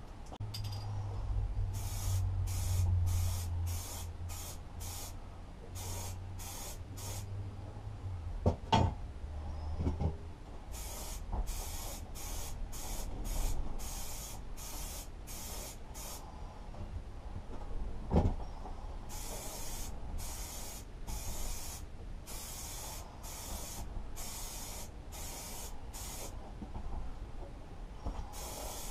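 Aerosol spray paint can spraying in short repeated bursts, about one and a half a second, in three runs with pauses between. Two sharp knocks, the loudest sounds, fall in the pauses.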